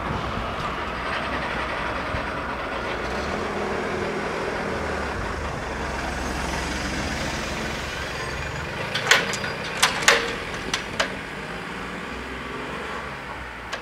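Steady outdoor rumble as the level-crossing barriers lift, then a car driving over the crossing, its tyres knocking sharply over the rails several times about nine to eleven seconds in.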